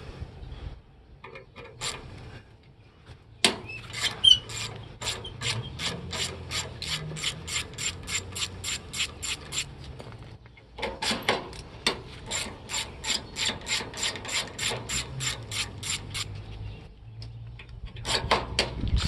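Hand ratchet with a 5/16 socket clicking steadily, about three clicks a second, as screws are backed out of an air conditioner's sheet-metal housing; two long runs with a short pause between them, then a brief run near the end.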